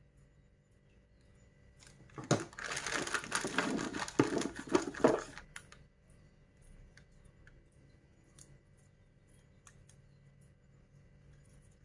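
Clear plastic zip-lock bag crinkling for about three seconds as a gloved hand rummages in it and pulls out a cable, followed by a few faint ticks.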